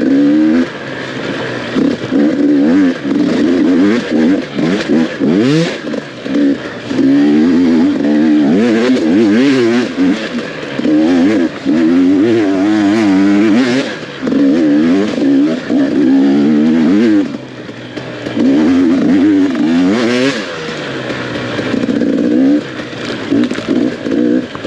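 Off-road dirt bike engine under race throttle, revving up and dropping off again and again as the rider works the throttle and gears.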